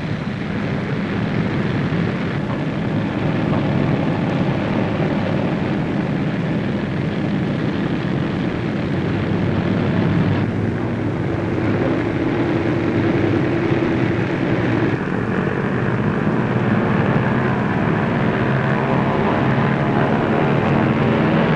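B-17 Flying Fortress bombers' Wright Cyclone radial engines running in a steady drone as the four-engined planes taxi out. The sound changes abruptly about ten and fifteen seconds in.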